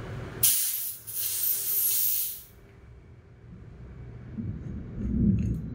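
Compressed air hissing out of a PCP airgun's paintball knockdown regulator on its tester tank in a loud burst. It starts sharply, dips briefly about half a second later, then cuts off about two and a half seconds in. The air is being let off a setting judged too high.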